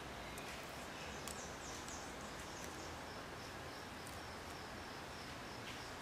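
Faint steady background noise with a series of quick, faint, high-pitched chirps repeating for a couple of seconds in the first half.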